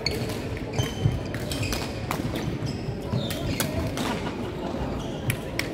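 Sharp irregular pops of badminton rackets striking shuttlecocks across several courts, with short high squeaks of shoes on the wooden sports floor over a general murmur of voices in the hall.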